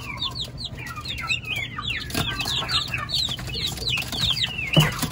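Newly hatched turkey poults peeping in a brooder: many short, high, falling peeps overlapping continuously. There is a click about two seconds in and a louder knock near the end.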